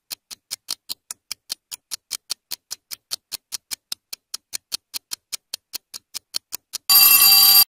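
Quiz countdown timer ticking fast and evenly, about six ticks a second, ending near the end in a loud ring of the bell that marks time up.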